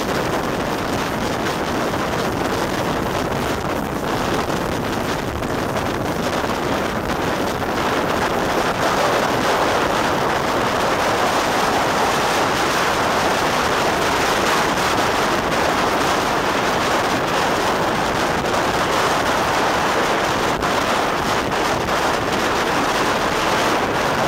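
Wind buffeting the microphone over the steady running noise of a train hauled by Great Northern Railway V class 4-4-0 compound No.85 Merlin at speed, heard from an open window of the carriage behind the tender. The noise grows a little louder about eight seconds in.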